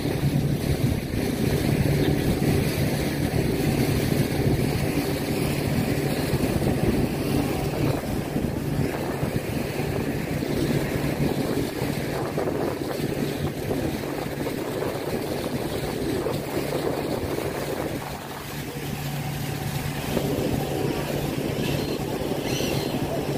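Boat engine running steadily with a low hum, under a rushing noise of wind and water; it dips briefly about eighteen seconds in.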